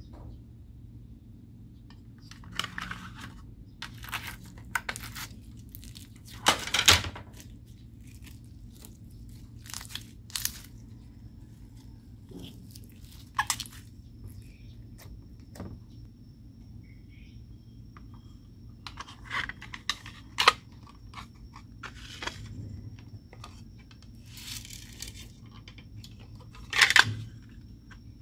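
Slime being squeezed and worked by hand, with irregular crunching and crackling pops. The loudest come about seven, twenty and twenty-seven seconds in, over a steady low background hum.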